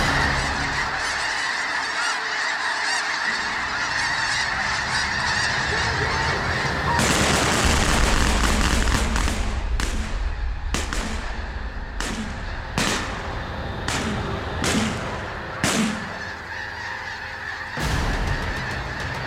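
A huge flock of snow geese calling in flight, a dense, constant clamor of honking. Through the middle of the stretch comes a string of sharp cracks about a second apart.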